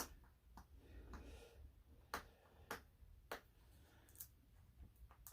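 Light, scattered clicks and knocks of wooden jig parts and tools being handled on a workbench. Three come in quick succession, about half a second apart, in the middle.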